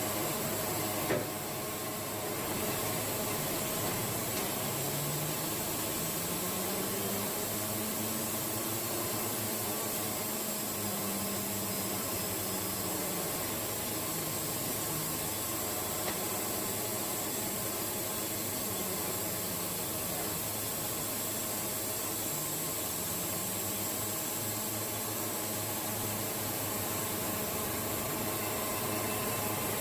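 Wood-Mizer band sawmill cutting red cedar: a steady whir of the blade running through the log over the mill's engine hum, which drifts slowly in pitch with the load. A short knock sounds about a second in.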